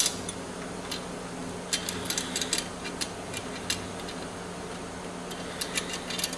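Light metallic clicks and taps from a hinged stainless sanitary tack clamp and stainless steel tubing being handled and fitted together, coming in scattered clusters over a steady low hum.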